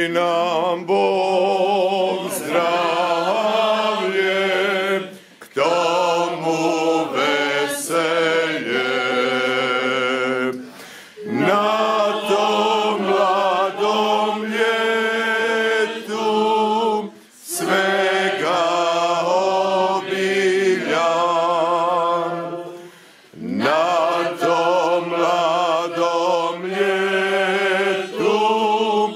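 Small choir singing a cappella, sustained phrases with short breaks for breath about every six seconds.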